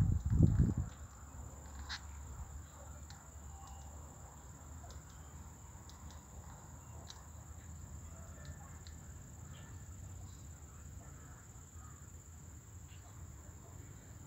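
Faint outdoor ambience with faint bird calls, possibly fowl, and a steady high-pitched thin drone. It follows a low rumbling on the microphone that dies away about a second in.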